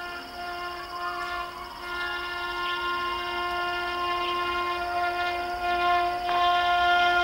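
Horn of an approaching WAP-5 electric locomotive sounding one long continuous blast, its pitch shifting about two seconds in, growing louder as the train nears.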